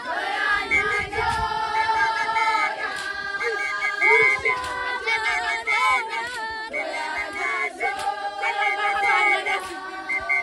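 Young Zulu women singing a traditional song together, many voices overlapping in a group chant.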